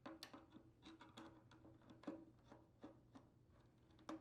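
Faint, irregular clicks and ticks of a screwdriver working the terminal screws on an electric water heater's thermostat as the wires are loosened and detached.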